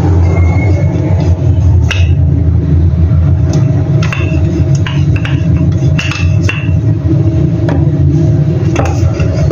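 Scattered knocks and clinks of a wooden rolling pin and kitchen utensils against a wooden chopping board, over a loud steady low drone.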